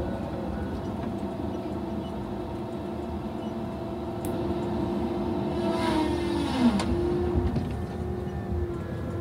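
Tigercat feller buncher running with a steady hum and a held whine. About six seconds in, a louder rushing noise swells with a tone sliding downward, then settles back to the steady run.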